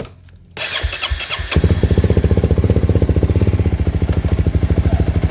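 Honda CRF250L single-cylinder four-stroke engine turned over by its electric starter for about a second, then catching and running with an even, steady beat. The start is made with the side-stand safety switch bridged out.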